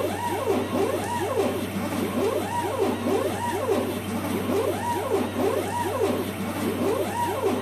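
Stepper motors of a DIY CNC machine under Mach3 control, whining in pitch sweeps that rise and fall about one and a half times a second as the axes trace circular moves while stepping down in Z. A steady low hum runs underneath.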